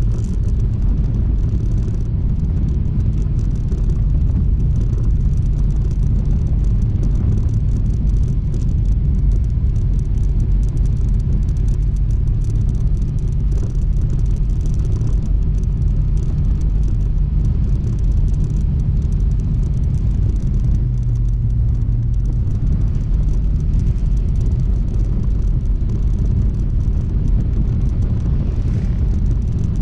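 Honda ADV160 scooter's single-cylinder engine running steadily on the move, under a constant rumble of wind and road noise; the engine note shifts about two-thirds of the way through.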